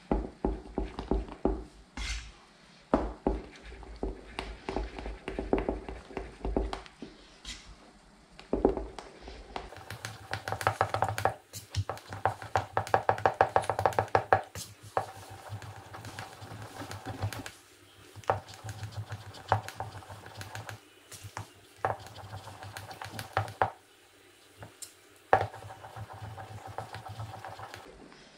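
Spoon stirring and scraping in a bowl of cream, with many quick clinks and knocks that come thick and fast from about ten seconds in.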